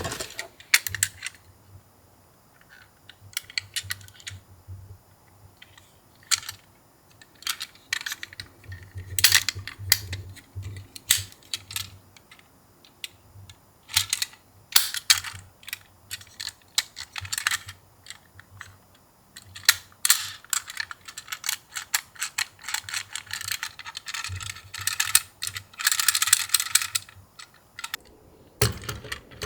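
Irregular plastic clicks and rattles of a toy ambulance minicar being handled, with a denser clatter near the end.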